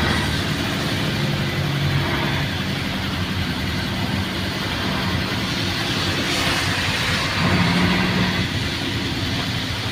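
Isuzu Giga truck's 6WA1 diesel engine running steadily while driving, heard from inside the cab, over a steady hiss of rain and tyres on wet road. The engine note swells briefly about seven and a half seconds in.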